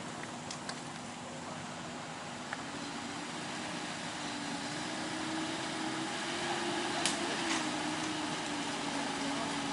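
A heavy vehicle's engine running steadily, its hum wavering slightly in pitch and growing gradually louder. Two sharp clicks come about seven seconds in.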